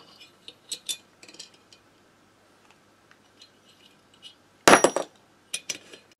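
Small metal clicks and clinks of nuts and washers being fitted onto the cylinder-head studs of a Motobécane AV89 moped engine, with a louder burst of metal clinks about four and a half seconds in.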